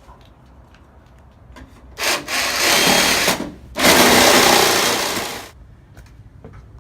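A power cutting tool cutting through nails that hold the rotted fascia, run in two bursts of about a second and a half each, with a short pause between them.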